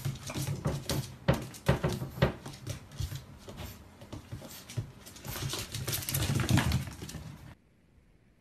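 A puppy and a long-haired cat scuffling on a tiled floor: a busy run of clicks and scrapes with short animal noises. It cuts off suddenly about a second before the end, leaving faint room hum.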